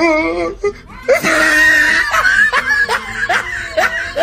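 A person laughing hard in a rapid string of high-pitched laughs, starting about a second in.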